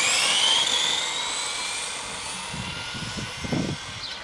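Traxxas XO-1 RC supercar's brushless electric motor and drivetrain accelerating hard: a high whine that climbs steeply in pitch, then holds steady and fades as the car speeds away.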